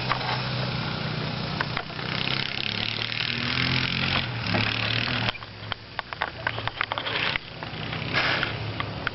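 Honda engine running and revving, with a loud gritty hiss of dirt being thrown that swells in waves. The engine's pitch climbs a few seconds in, then drops suddenly, followed by a spell of sharp ticks and clicks.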